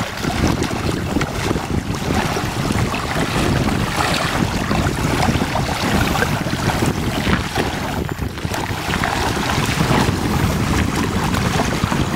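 Wind buffeting the microphone, with small waves washing in shallow water.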